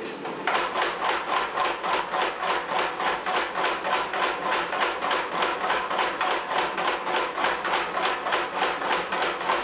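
Homemade Anvil Fire X1-type spring power hammer, leaf-spring and belt-driven, pounding a red-hot bar between its dies in a steady, even rhythm of about three blows a second. The blows start about half a second in, over the steady hum of its running motor.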